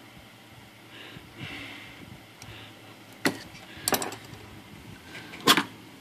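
A few sharp clicks and knocks as the space bar of a decased Olivetti Valentine typewriter is handled in its pressure-fit mounts: one about halfway through, a quick cluster just after, and the loudest near the end.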